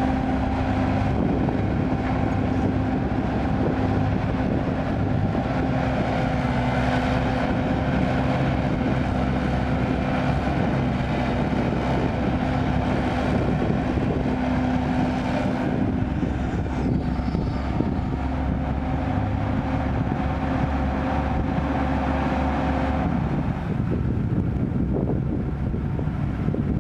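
Kobelco excavator's diesel engine running steadily, with a steady whine over the rumble that stops a few seconds before the end.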